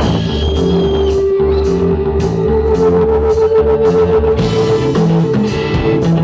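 Live instrumental rock band playing: electric guitars hold a long sustained note over bass, with evenly spaced drum and cymbal hits about two a second.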